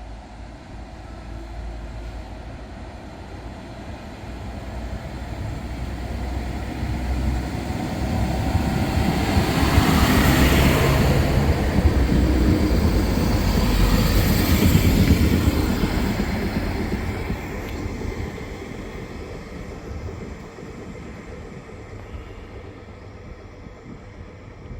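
A train going past on the rails: its rumble builds over several seconds, is loudest from about ten to sixteen seconds in, then fades away.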